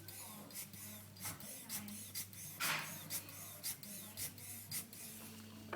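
Irregular scraping and crunching clicks of termite-damaged plasterboard being broken open and picked at, with one louder crunch about halfway through, over a steady low hum.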